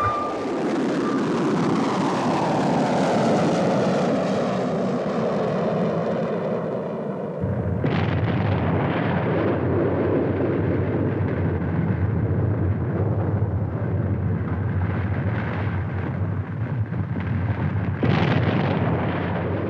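Film special-effects sounds played one after another: a heavy rumbling roar that sweeps down in pitch over the first seven seconds or so, then a sudden cut to a steadier low rumble with irregular louder surges, and another change near the end.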